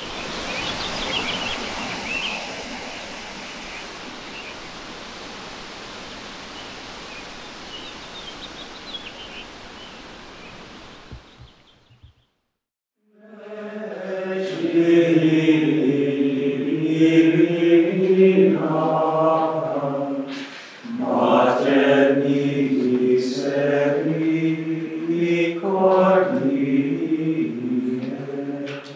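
A steady noisy hiss of outdoor ambience for about twelve seconds, then, after a brief gap, a choir of monks singing plainchant in unison in men's voices.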